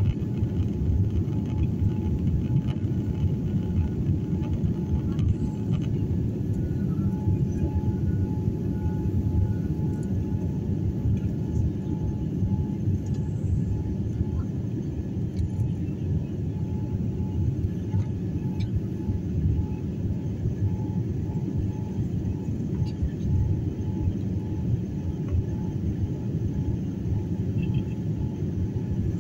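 Steady low rumble of a jet airliner's engines and airflow heard inside the passenger cabin during the climb after takeoff, with a faint steady hum above it.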